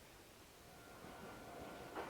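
Meitetsu electric train approaching: faint rail noise building from about a second in, with a faint steady high tone over it.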